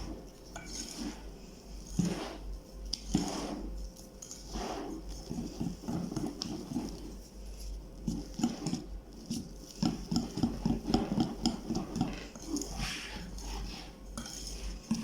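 A utensil scraping and knocking against a mixing bowl as flour is folded into a cake batter from the bottom up, in irregular strokes that come thicker and quicker after the middle.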